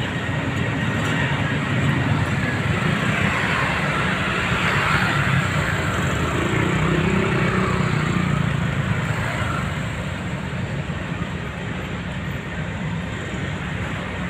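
Street traffic noise: vehicle engines running steadily, swelling around the middle as a vehicle passes and easing off after.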